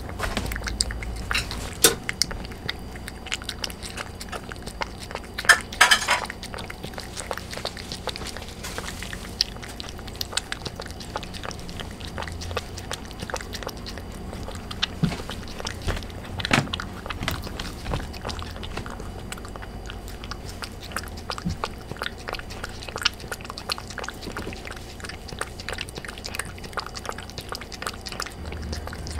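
Brown tabby cat eating soft, watered-down canned wet cat food from a bowl: steady wet chewing made of many small clicks, with a louder noisy moment about six seconds in.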